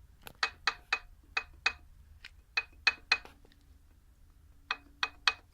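Crankshaft pulley damper ring on a ZMZ-406.3 engine, rocked by hand, clinking and ringing metal on metal in quick irregular knocks, with a pause of about a second in the middle. This ringing knock comes from the damper having come off its seat and dangling loose on the pulley.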